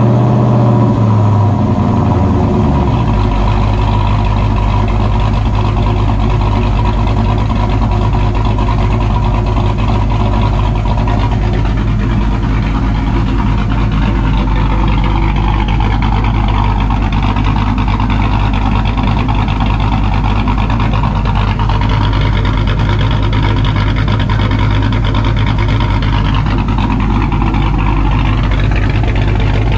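Dodge Dakota's V8 idling through an exhaust with resonators in the middle of the system, which quiet it. Just after start-up it runs a faster, unsettled idle for the first two or three seconds, then drops to a steady idle.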